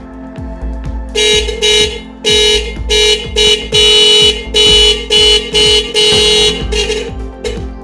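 Electric motorcycle horn sounding in a run of about a dozen short and long toots at one steady pitch, starting about a second in, with a steady low beat underneath.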